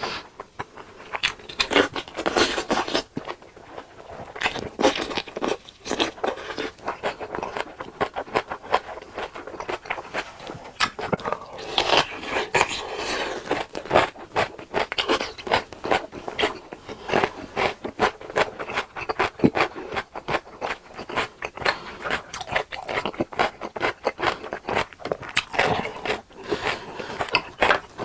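Close-miked eating: crunchy bites and chewing, with scraping sounds, as dense irregular crackles and clicks several times a second.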